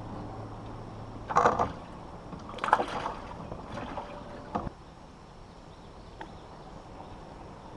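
Knocks and clatter of gear against an aluminum fishing boat, in three bunches about a second apart, the loudest near the middle, after a low steady hum stops about a second and a half in.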